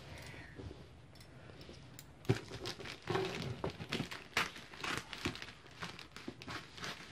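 Clear plastic stretch wrap and a plastic courier bag crinkling as scissors cut through them: a run of short snips and rustles that starts about two seconds in.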